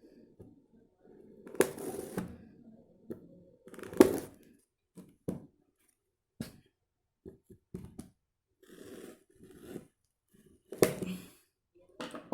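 Strong packing tape on a cardboard box being cut and torn open, in irregular scraping and ripping bursts with short gaps between them.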